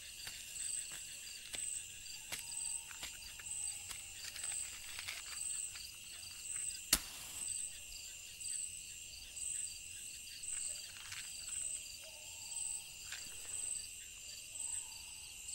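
Night crickets chirping in a steady pulsing rhythm, about one pulse every 0.8 seconds, with a single sharp click about seven seconds in.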